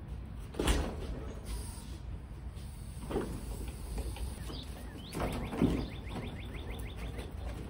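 Racing karts on wheeled stands being rolled up a metal ramp into an enclosed trailer. A sharp clunk comes just under a second in, with more knocks and rattles around three and five seconds, and a quick run of light ticks in the second half.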